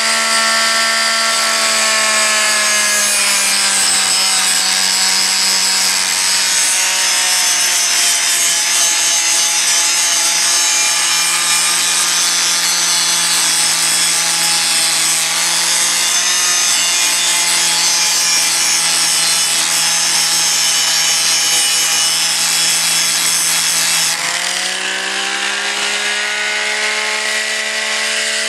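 Electric angle grinder grinding rusty steel on a trailer frame down to bare metal. The motor's pitch drops about two seconds in as the disc bites into the steel and holds there under a hissing grind, then climbs back near the end as the disc comes off the metal and spins free.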